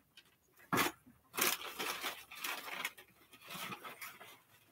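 Packaging crinkling and rustling as pet-care supplies are rummaged through: a sharp crackle about a second in, then irregular bouts of rustling.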